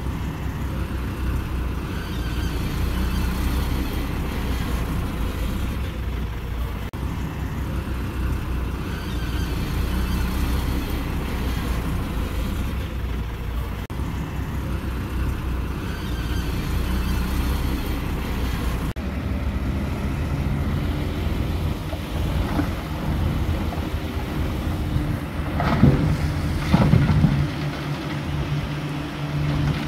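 Diesel engines of heavy earthmoving machinery running, a deep continuous rumble. About two-thirds through the sound changes abruptly to a steadier engine note, and near the end there are several loud metallic clanks.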